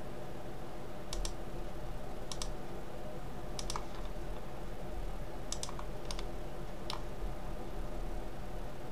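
Computer mouse button clicks, sharp and mostly in quick pairs, about every second, as knife-tool cut points are placed on a 3D mesh. A steady low electrical hum runs underneath.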